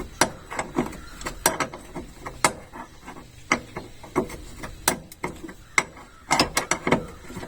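Ratchet wrench clicking in short irregular runs as bolts are loosened, with sharp metallic clicks bunched close together in places, most densely near the end.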